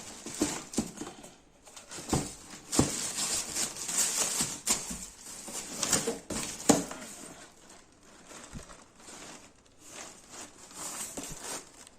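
Irregular rustling and light knocks of a new sneaker being handled and turned over, busiest in the first several seconds and fainter later.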